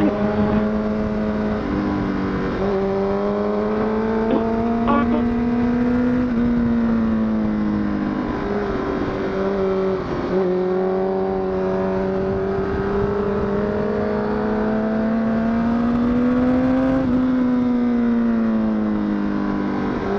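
Honda CBR1000RR (SC57) inline-four engine running on the ride, its pitch slowly rising and falling with the throttle, with short dips about two seconds in, around nine to ten seconds and near seventeen seconds.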